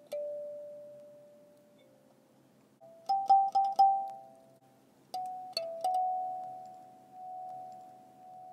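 17-key kalimba plucked by hand, playing a slow melody. Single notes and two-note chords ring and slowly fade: one note at the start, a quick cluster of notes about three seconds in, and a few more just before the six-second mark that are left to ring out.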